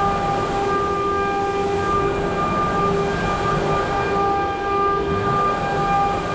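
CNC milling machine running, its spindle giving a steady high whine that wavers slightly in strength over constant machining noise.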